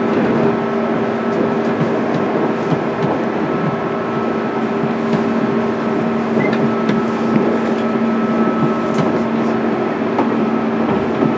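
Running sound from inside a JR East 205-series electric train's motor car, its MT61 traction motors and gearing giving a steady whine at constant speed over the rumble of wheels on rail, with a few scattered clicks.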